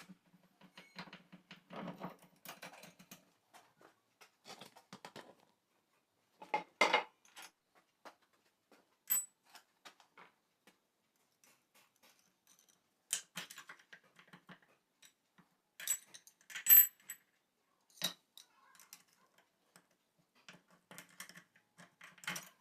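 Sporadic clinks, taps and knocks of small metal parts and tools being handled on a workbench, the loudest ones ringing briefly, around seven and seventeen seconds in.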